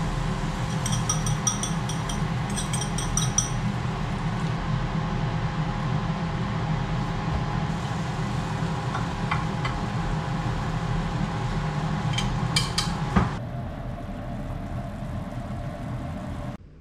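Cooking a rolled omelette in a small rectangular pan on a gas hob: a steady low stove roar with frying hiss throughout. Chopsticks clink against the egg bowl and pan in two short runs near the start. A few sharp taps come about twelve seconds in, after which the noise gets quieter.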